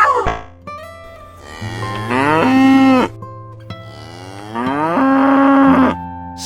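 A cow mooing twice, two long calls that each rise in pitch and then hold steady.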